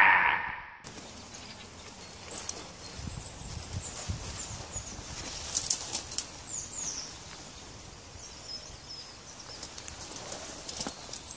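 Outdoor woodland ambience with small birds chirping on and off, plus a few soft knocks in the first half.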